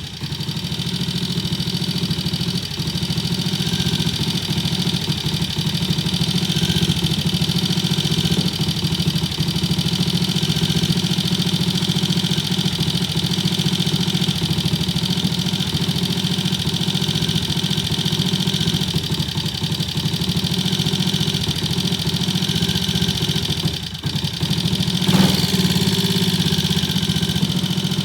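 Triumph T20M Tiger Cub's single-cylinder four-stroke engine running steadily at idle. About 24 seconds in, it dips briefly, then gives a short louder blip.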